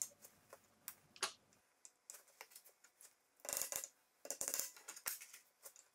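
Faint wooden clicks and light taps as glued wooden dowels are set into the drilled holes of an ash furniture leg. There are a few single ticks, then two quick rattling clusters a little past halfway.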